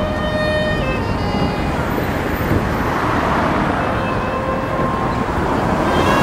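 City street traffic: cars driving past close by, a steady wash of engine and tyre noise that swells as each car goes by, around three seconds in and again near the end. A few faint sustained musical tones sound during the first two seconds.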